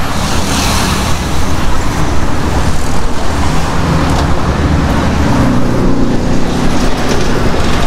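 Busy city street traffic: cars and buses driving past, with a deep engine hum that swells about halfway through and eases off near the end.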